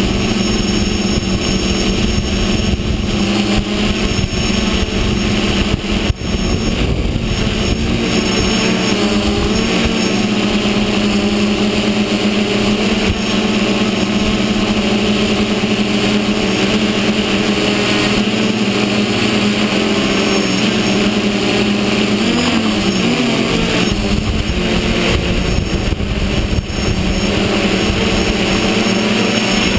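Hexacopter's six electric motors and propellers whirring steadily in flight, heard up close from the camera mounted on the craft. Several steady tones are held together, and their pitch wavers briefly about two-thirds of the way in.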